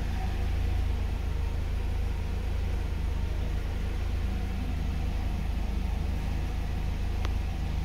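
1991 Mercedes-Benz W124's engine idling steadily at about 1000 rpm shortly after a cold start, heard from inside the cabin. A single light click near the end.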